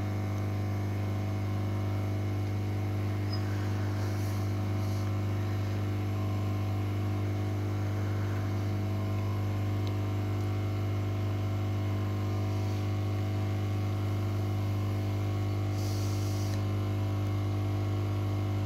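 Hot-air rework station blowing: a steady low hum with a faint rush of air from the nozzle, as a small chip is reflow-soldered onto a motherboard.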